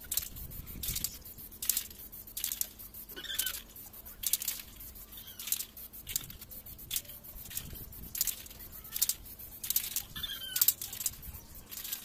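Aerosol spray paint can hissing in short repeated bursts, about one or two a second, as paint is sprayed onto a metal frame.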